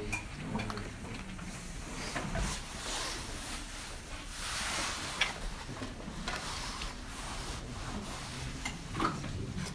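Rustling and handling noise, with scattered small clicks and knocks.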